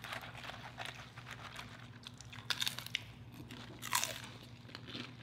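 Tortilla chips loaded with cheese sauce and toppings crunching as they are bitten and chewed, with scattered crackles, a cluster of crunches about two and a half seconds in and a sharper crunch near four seconds.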